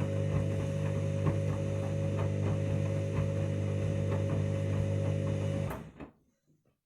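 Candy washing machine's drain pump running with a steady electric hum and faint regular ticking, then cutting off suddenly near the end.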